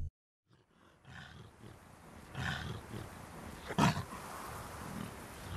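Wolves growling as a cartoon sound effect. After about a second of silence comes a run of growls, the loudest a short, sharp one a little before four seconds in.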